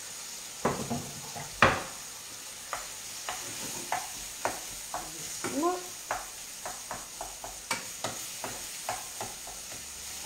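Diced pumpkin, sausage and onion sizzling in a frying pan while a wooden spatula stirs them, knocking against the pan about once or twice a second. The loudest knock comes about a second and a half in.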